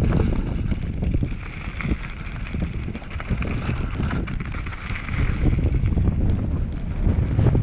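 Wind rumbling over an action-camera microphone as a mountain bike rides fast down a loose gravel trail, with the tyres crunching and the bike clattering and knocking over bumps.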